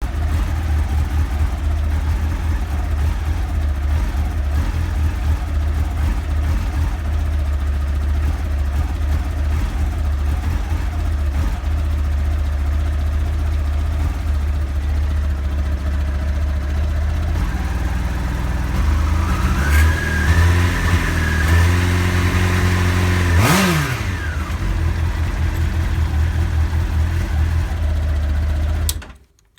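1989 Honda CBR1000F inline-four engine idling unevenly with a misfire. It is revved up briefly a little past halfway, with one quick throttle blip, then drops back to idle before cutting off near the end. The owner runs later-model Fireblade stick coils and thinks the misfire may mean it needs a new set of spark plugs.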